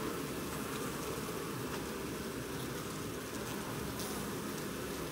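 A colony of Japanese honey bees humming steadily on the comb, the many wingbeats blending into one low, even drone.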